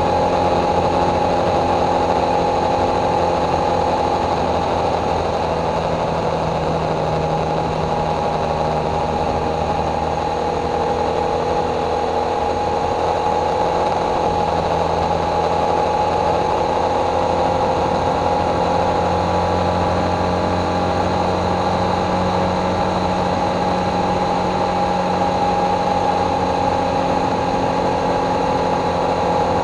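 Motorcycle engine running steadily at cruising speed, its note shifting only slightly, over a constant rush of road and wind noise.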